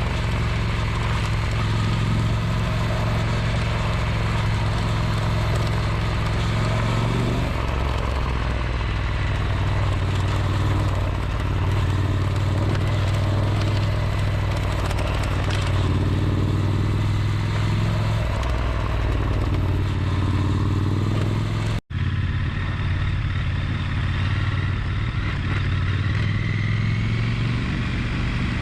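Triumph Scrambler 1200 XE's parallel-twin engine idling steadily with a rattle, which the owner traces along the chain and at the side stand. The sound breaks off for a split second about three quarters of the way through.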